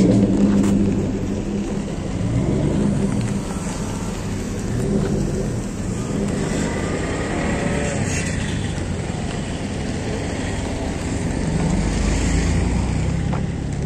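Pickup trucks and cars driving slowly past on a dirt road, engines running and tyres rolling over the dirt. The nearest engine fades about a second in, leaving a steady traffic rumble.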